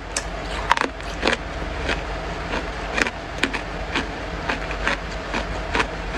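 Freezer frost being chewed with the mouth closed: irregular crisp crunches, about one or two a second, over a steady low hum.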